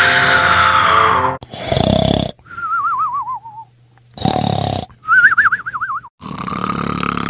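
Cartoon-style snoring: a rasping snore on the in-breath followed by a wavering whistle that falls in pitch on the out-breath, twice, then a third longer snore with a held whistle. It opens with the end of a sliding musical tone.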